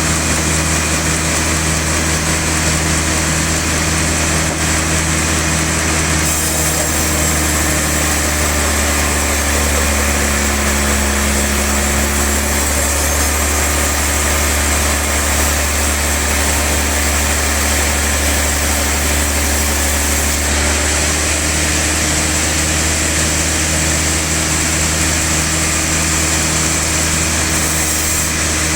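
Sawmill machinery running with a steady low hum. The higher part of the sound changes about six seconds in and changes back about twenty seconds in.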